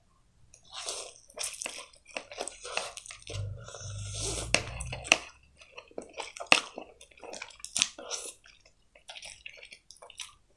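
Close-miked slurping and chewing of instant noodles eaten with chopsticks: wet slurps, with many short smacking mouth clicks throughout and a longer slurp in the middle.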